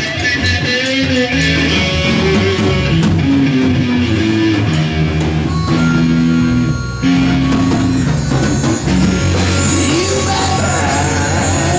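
Rock music without vocals: electric guitar playing over bass guitar, with a bending, wavering guitar note near the end.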